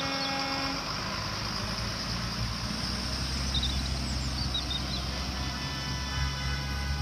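Diesel school buses running as they pull away on a wet street, with tyre hiss, the engine sound growing stronger a few seconds in. A short steady tone sounds near the start.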